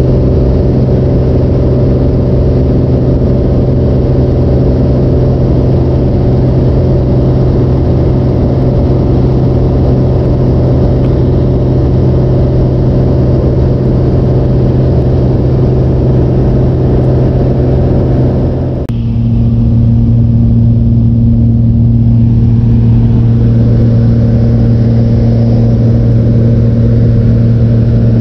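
Light high-wing aircraft's engine and propeller droning steadily in flight, heard loud from inside the cabin. About 19 seconds in, the drone briefly dips and settles to a slightly lower pitch.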